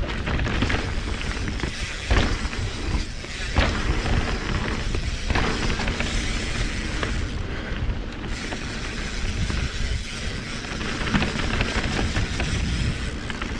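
Mountain bike riding fast down a dirt trail: wind buffeting the action-camera microphone over the rattle of tyres and bike on rough ground, with a few sharp knocks from bumps, the clearest about two, three and a half and five seconds in.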